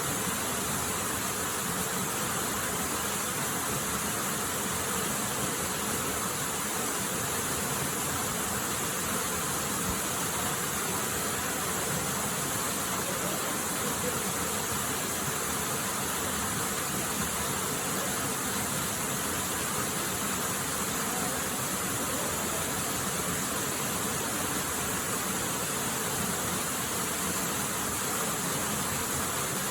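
Steady, even rush of a waterfall, a continuous noise of falling water that never changes.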